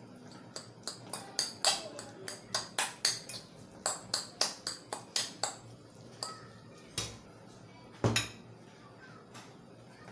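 Fork clicking against a ceramic bowl while flaking cooked mackerel, about three to four quick clicks a second for some five seconds. Then two louder knocks as the bowl and fork are set down on the counter.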